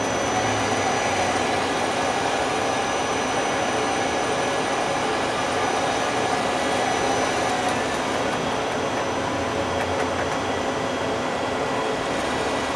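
Live rotary tool on the turret of a Daewoo Puma 200LMSC CNC turning center running steadily at a raised speed: an even mechanical hum with a few faint steady whining tones.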